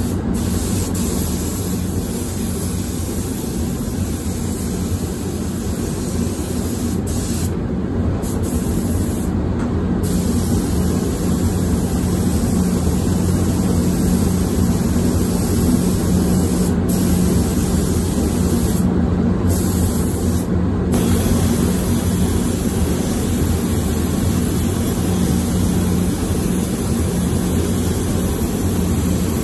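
Gravity-feed automotive spray gun hissing steadily as it lays the pearl mid-coat of a tri-stage paint onto a bumper, the hiss breaking off briefly a few times between passes. A steady low hum runs underneath.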